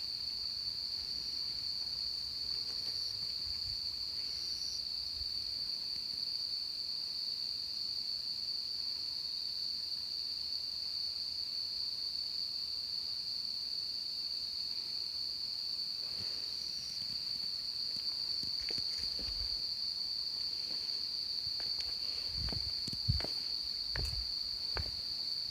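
A dense chorus of insects calling without a break, a single high, even drone. Footsteps start in the last several seconds.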